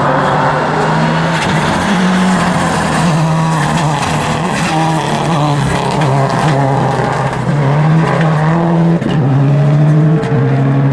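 Rally car engine at full throttle on a stage, its note rising and falling several times as it revs up and changes gear, with a sharp drop about nine seconds in.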